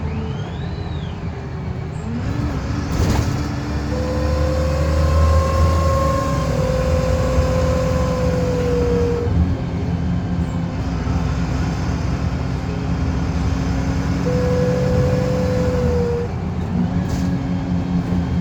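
VDL SB200 / Wright Commander single-deck bus under way, its engine rumbling underneath a pitched whirring whine that drifts slowly up and down in pitch as the bus changes speed. The whine is loudest from about four to nine seconds in, fades, and returns briefly near the end.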